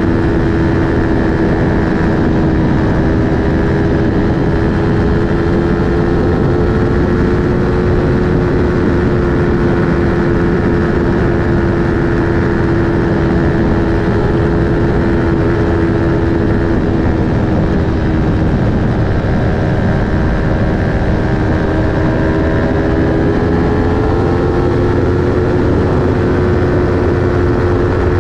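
Aprilia Tuono 1100 RR's V4 engine through an Akrapovic slip-on exhaust, held at steady high revs at speed over heavy wind rush. The engine pitch eases slightly past the middle and climbs again near the end.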